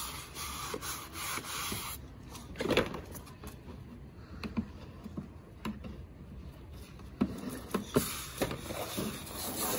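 Scrubbing: irregular rubbing strokes of hand cleaning over a surface, with a brief louder scrape about three seconds in.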